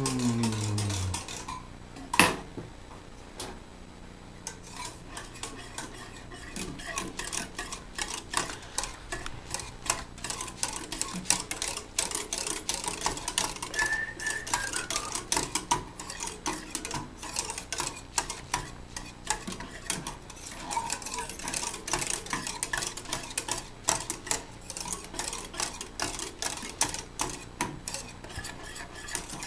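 Wire whisk rattling and scraping against a metal pot as milk pudding is stirred: a fast, uneven clicking that fills in from about five seconds in. A single sharp knock comes about two seconds in.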